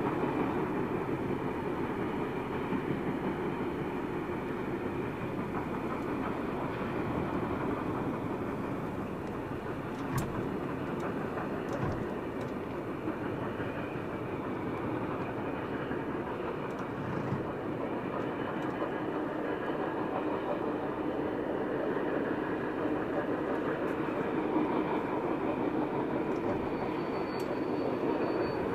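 Steam locomotive 3642, a NSW 36 class, running with its train of carriages: a steady, even train noise of engine and wheels, with a couple of sharp clicks about ten seconds in.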